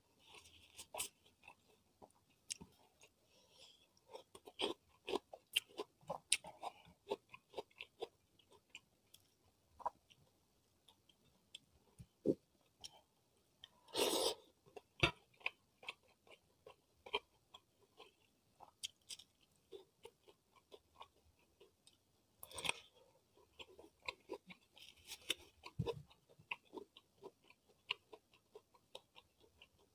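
Close-miked chewing and wet mouth sounds of someone eating rice and fish with their fingers, with many small clicks and smacks. A louder, longer burst comes near the middle, and a shorter one about three-quarters of the way through.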